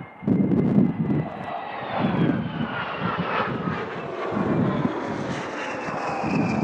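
Vickers VC-10's four Rolls-Royce Conway engines at full power on a low pass and go-around: a loud, deep pulsing rumble with a high whine that falls slowly in pitch as the jet goes by.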